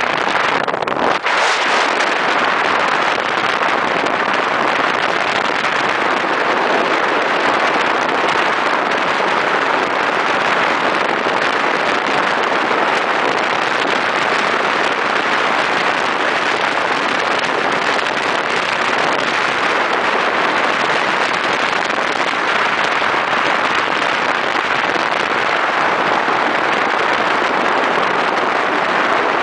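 Steady rush of wind over the microphone of a moving motorcycle, with engine and road noise underneath.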